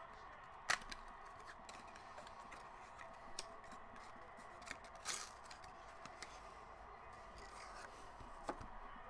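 Faint handling of a small cardboard trading-card box as its seal is broken, the box opened and the cards slid out: a sharp click about a second in, then scattered taps and rustles, with a short scrape about five seconds in and another click near the end.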